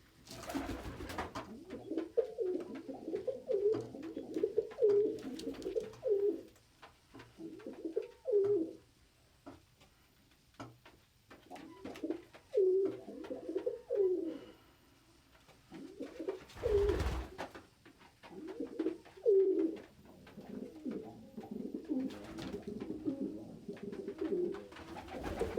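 Domestic pigeons cooing in repeated low, wavering bouts, with a couple of short rustling thumps, one about a second in and one past the middle.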